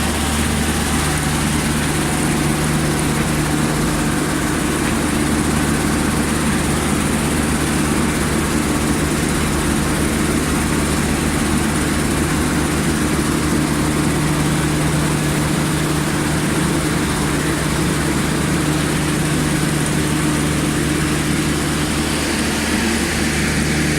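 Sand washing and recycling machine running steadily: a constant motor hum under an even rushing noise, with no change in pace.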